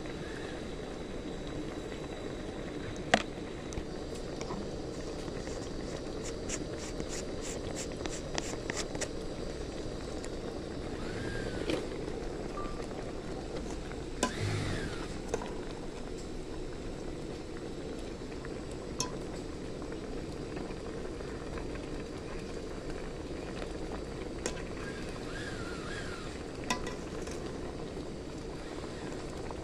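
Metal ladle stirring a pot of simmering mushroom curry, knocking and clinking against the metal pot, with a quick run of light clinks partway through, over the steady sound of the broth bubbling.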